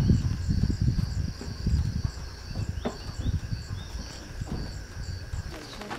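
Crickets chirping in steady, evenly repeating high pulses. Beneath them is a low rumbling noise that is heaviest in the first couple of seconds and then fades.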